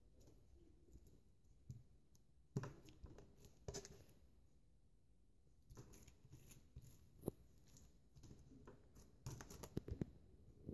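Slime being stretched and squeezed by hand: faint, scattered sticky clicks and squelches, coming more often near the end.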